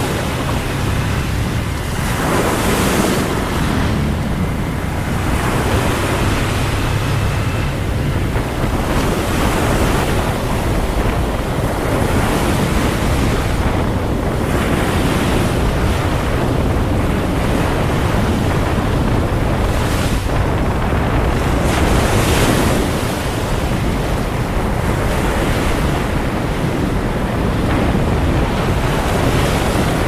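Wind buffeting the microphone of a camera on a moving motorcycle, swelling and easing every few seconds, over the low steady rumble of the motorcycle running.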